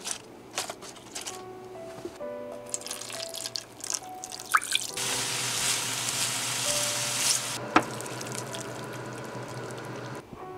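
Light background music over kitchen sounds: scattered handling clicks, then a hiss of about two and a half seconds mid-way, the sizzle of julienned burdock and carrot stir-frying in a pan, ending with a sharp click.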